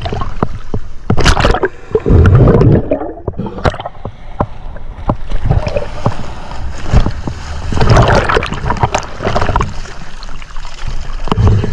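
Choppy sea water sloshing and splashing around a camera held at the surface, the microphone dipping in and out of the water, in uneven surges with many sharp clicks and knocks.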